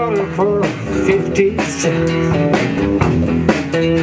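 Small unplugged band playing: acoustic guitars strumming over a drum kit, with a melody line that bends in pitch in the first second.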